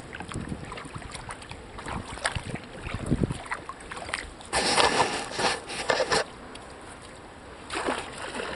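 Kayak paddling: the paddle blades dip and splash in the lake water, with drips and small knocks throughout. A louder stretch of splashing comes about halfway through, and a shorter one near the end.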